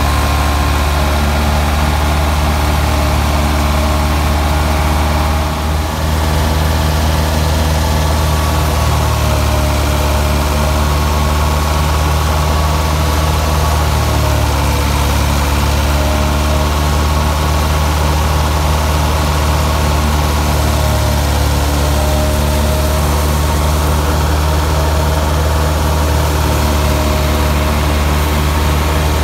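Ford 3610 tractor's three-cylinder diesel engine running steadily under load, powering a wheat thresher through its PTO shaft, with the thresher's machinery whirring over the engine note. The engine sound dips briefly about six seconds in.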